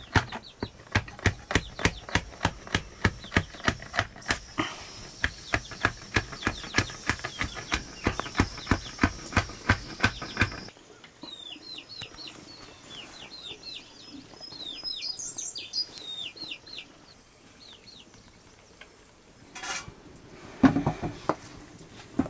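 A knife chopping steadily on a cutting board, about four strokes a second, stopping abruptly about ten seconds in. Then birds chirping in short, high, falling notes, and a few louder knocks near the end.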